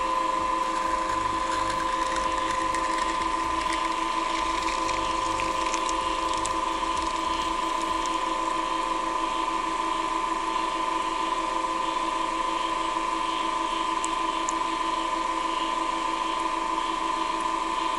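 Centrifugal casting machine for soft-plastic fishing lures spinning its mould at 1500 rpm: a steady, high motor whine.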